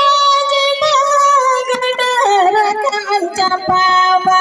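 A woman singing a Santhali song in long, high held notes that slide between pitches, amplified through a microphone.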